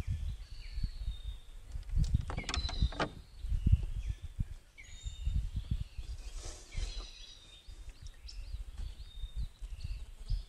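Birds calling from the mangroves with short whistled chirps and brief falling notes, over irregular low buffeting of wind on the microphone. A few sharp knocks come about two to three seconds in.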